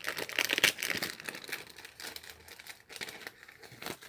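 Packaging crinkling as it is handled, densest for the first second and a half, then thinning out, with a sharp click near the end.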